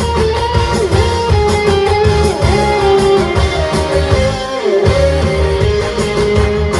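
Upbeat arranged pop-trot song in an instrumental break: a guitar plays the melody over a steady pulsing bass beat.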